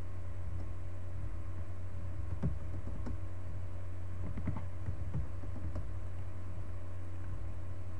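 Steady low electrical hum, with a handful of scattered computer keyboard and mouse clicks between about two and six seconds in.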